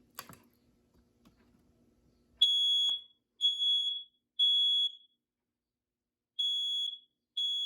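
BRK Electronics smoke alarm sounding on test: loud, high-pitched beeps in the standard three-beep evacuation pattern. It gives three half-second beeps about a second apart, a pause, then three more. A click comes just after the start, and the beeping begins about two seconds later.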